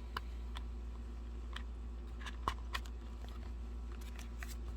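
Scattered light clicks and taps of album inserts and photocards being handled, the sharpest about two and a half seconds in, over a steady low hum.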